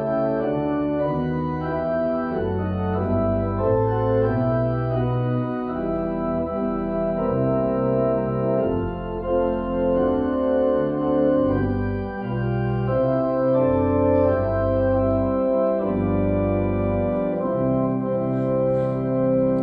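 Church organ playing slow, sustained chords over a low pedal bass line, the chords changing every second or two.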